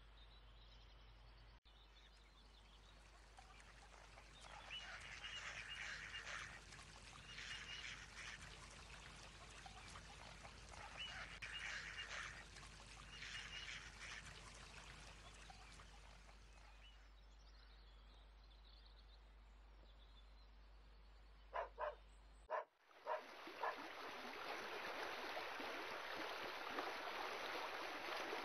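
Several short bouts of animal calls, then a few sharp clicks. About three-quarters of the way through, water starts rushing down a stepped concrete spillway channel and becomes the loudest sound.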